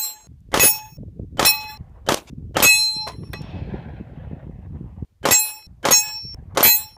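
9mm rounds from a Glock 19 pistol striking a 1/2-inch AR500 steel target, each hit a sharp crack followed by a clear metallic ring. Five hits come in quick succession, then after a pause of about two seconds three more.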